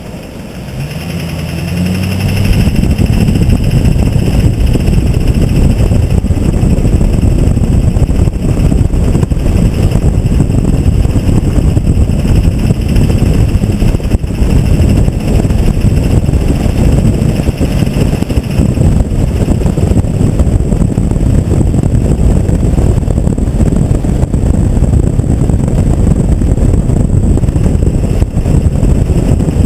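LB7 Duramax 6.6 L turbo-diesel V8 running. It builds up over the first couple of seconds, then stays loud and steady, with a high whine on top that fades out about two-thirds of the way through. The turbocharger is said to be bad.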